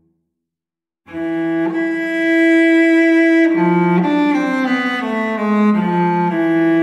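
Background music on bowed strings. After about a second of silence it comes back in on a held note, then plays a short line of notes stepping downward before settling on the held note again.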